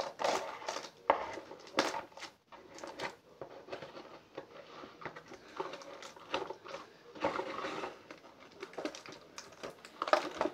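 Cardboard toy box and its packaging insert being handled: irregular rustling, scraping and small taps, with a few sharper clicks.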